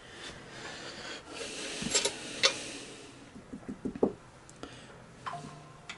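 Light handling noises: a brief soft rustle with a couple of sharp clicks, then a short run of soft low knocks and a few scattered ticks.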